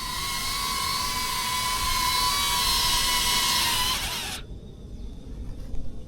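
Small camera drone's propellers whirring close by in a steady high whine, which cuts off suddenly about four seconds in.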